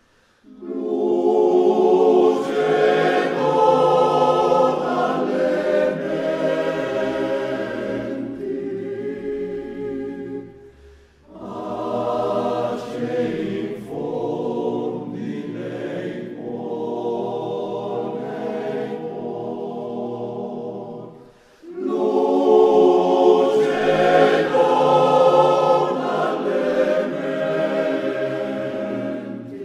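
Background music of a choir singing in three long, sustained phrases, with short breaks about eleven and twenty-one seconds in.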